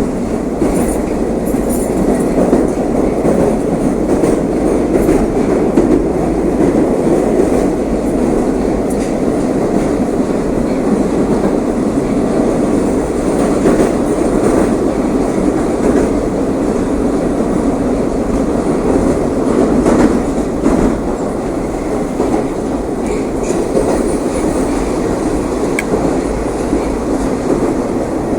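Moscow metro train running at speed through the tunnel between stations, heard from inside the car: a steady, loud rumble of wheels on rail with faint clicks from the rail joints.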